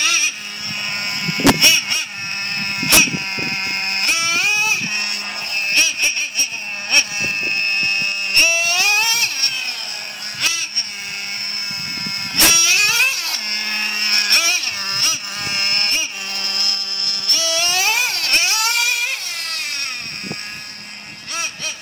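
Traxxas Jato 3.3 nitro RC car's small two-stroke glow engine, fitted with a Traxxas exhaust deflector, revving hard and easing off again and again in high-pitched rising wails as the car is driven. A few sharp cracks are mixed in.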